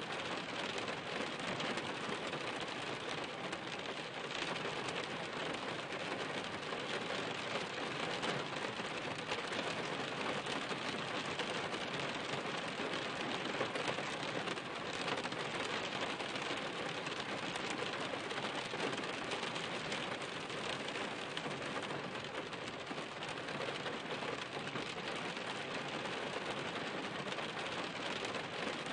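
Steady rain falling, a dense, even patter of many drops.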